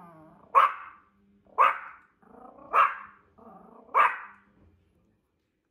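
Small Yorkshire terrier barking four sharp times, about a second apart, with lower growling between the barks, aimed at a plush toy dog on a shelf that it takes for a strange dog.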